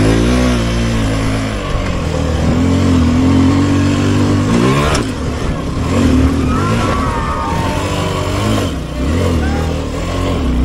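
Motorcycle engines revving, the pitch dropping in the first second and climbing sharply about four and a half seconds in, with people's voices mixed in.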